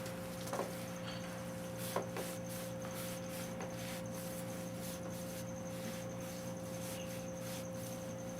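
Small clicks and faint scratchy rubbing from parts being wiped clean by hand, over a steady electrical hum.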